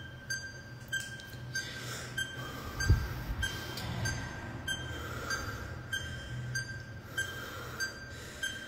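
Countdown timer beeping steadily, a short high beep about one and a half times a second, over a low rumble, with a dull thump about three seconds in.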